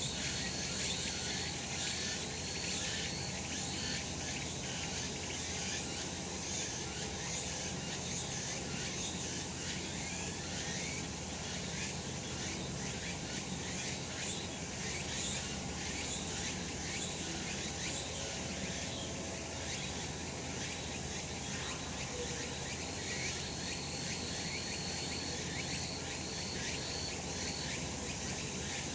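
Chorus of cicadas singing without a break, a dense high-pitched buzz.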